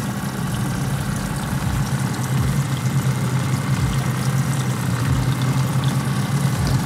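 Small outboard trolling motor running steadily at low trolling speed, a constant low hum, with a few short low thumps.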